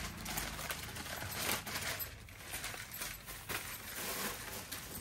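Rustling and crinkling of a packed suit and dupatta being unfolded from their packing, with many small irregular clicks and taps of handling.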